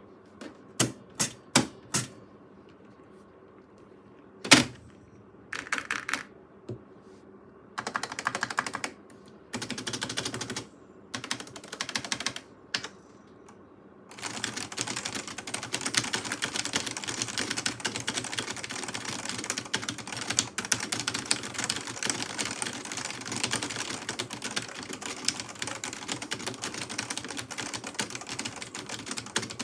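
Buckling-spring keys with 120 g springs and PBT keycaps on a Carrera de Luxe MD electric typewriter, still stock and not yet lubricated, clicking. It starts with single presses and short bursts, one of them notably loud about four and a half seconds in. From about halfway it turns into fast continuous typing.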